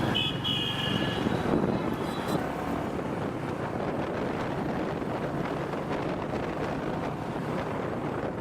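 Wind rushing steadily over a helmet microphone on a moving motorcycle, with the road and engine noise beneath. A brief high tone sounds during the first second or so.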